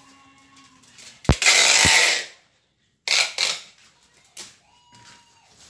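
Packing tape pulled off a handheld tape dispenser across a cardboard box: a knock, then about a second of loud tape screech, followed after a short break by a few brief rattles and knocks.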